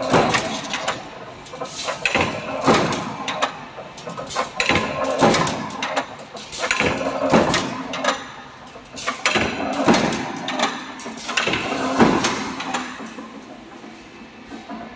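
Mechanical punch press punching holes in steel strip: sharp metallic strokes repeating about every two seconds, often in close pairs, with a quieter stretch near the end.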